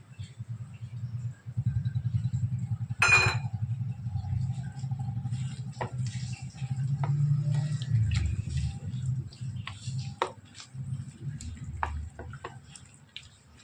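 A hand squishing and kneading raw chicken pieces in an egg and spice marinade, with scattered wet clicks and light taps against a ceramic plate. There is a sharp clink about three seconds in, over a steady low rumble.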